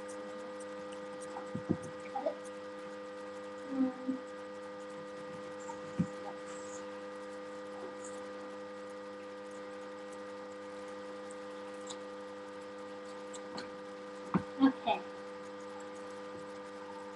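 Steady electrical mains hum made of several constant tones, broken by a few light knocks and handling noises of hands working tape and balsa parts on a table, the loudest a quick cluster of knocks near the end.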